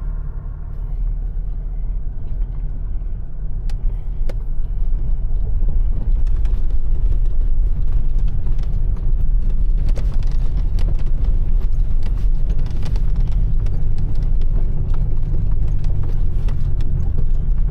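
Toyota LandCruiser four-wheel drive driving through a long creek crossing: a low engine and drivetrain rumble that builds over the first few seconds and then holds steady, with scattered knocks and bumps.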